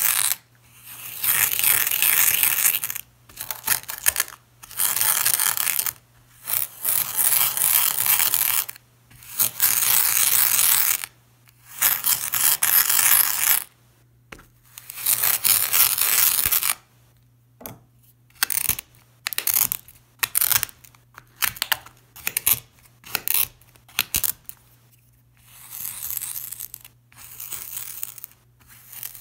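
Pink moldable play sand crunching as a cylinder presses it down and grinds it against a glass mirror, in a string of crunches with short pauses between. The first crunches are long, a second or two each; from about halfway they turn short and quick, and the last few are softer.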